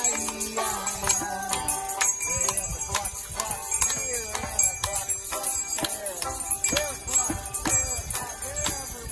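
Children playing hand percussion: tambourines jingling and shakers and wooden rattles rattling, with scattered sharp strikes over a tune whose notes slide up and down.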